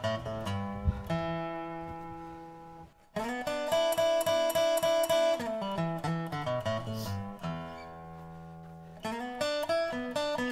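Background music of acoustic guitar playing a melody over held notes. It fades almost to nothing about three seconds in, then comes back in full.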